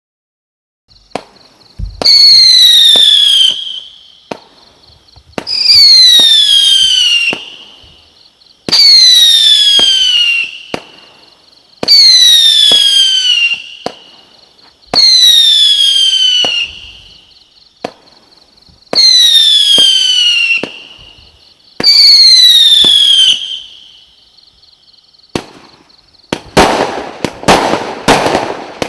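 0.8-inch, 49-shot consumer fireworks cake firing. A low thump comes about two seconds in, then seven long whistles, each falling in pitch and spaced about three seconds apart, then a fast string of cracking bangs near the end.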